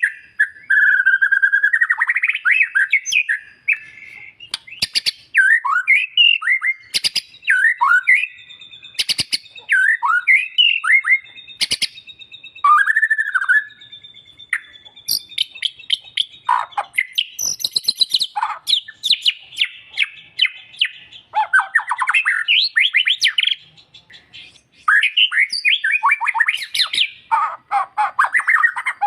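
White-rumped shama (murai batu) in full song: loud phrases of sweeping whistles and fast trills, broken by short pauses and sharp clicking notes, with a thin held high note in the middle of the song.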